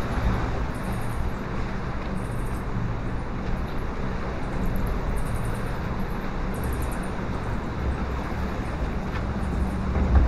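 Steady low rumble of a water-ride boat moving along its flume channel, with a low machine hum under the water noise.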